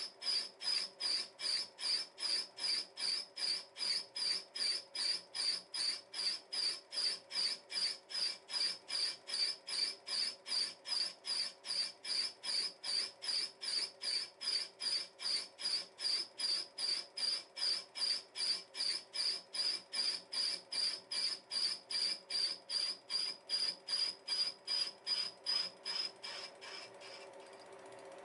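Single-point tool of a Wohlhaupter UPA 5 boring and facing head taking a facing cut on a slide's round surface. It gives a short, high-pitched chirp once each turn of the head, about three a second: the tool cuts only on part of each revolution. Near the end the chirps fade out, leaving the steady run of the milling machine.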